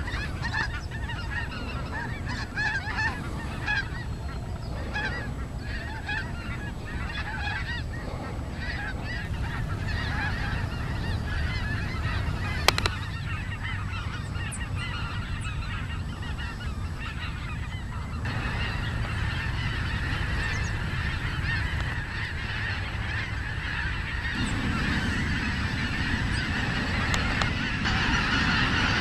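A large flock of snow geese calling, a dense continuous chorus of honking that grows louder and fuller in the last third. A single sharp click about halfway through.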